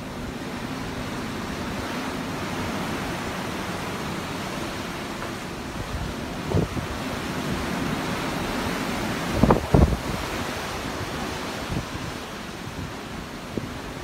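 Ocean waves washing in a steady rush that swells over the first few seconds. Short low thumps break through about halfway, with a louder double thump a few seconds later.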